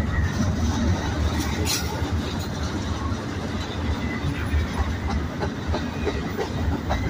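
Double-stack intermodal freight cars rolling past on the rails: a steady low rumble of wheels and couplers, with a few sharp clicks about a second and a half in. A thin, high wheel squeal shows briefly at the start and comes back near the end.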